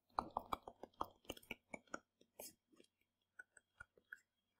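Faint stylus tapping and scratching on a tablet screen during handwriting: a quick run of small clicks that thins out after about two seconds.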